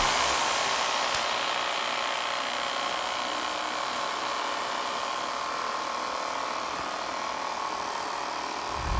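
Mini electric desk fans running together: a steady whir and hiss of small motors and spinning plastic blades, with a single click about a second in.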